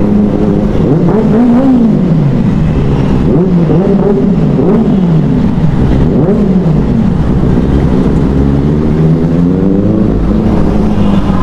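Benelli 600i inline-four motorcycle engine revved hard in an underpass, blipped up and down again and again, each rev rising and falling back within about a second.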